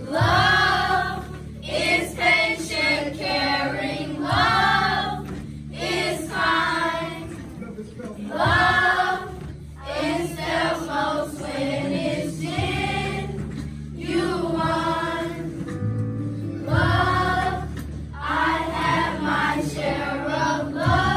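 Fifth-grade children's choir singing a gospel song, in phrases a few seconds long with short breaks between them.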